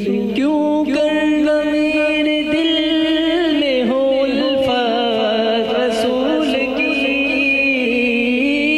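A male naat reciter singing an Urdu devotional poem in long, drawn-out notes that bend slowly, with a dip in pitch about four seconds in.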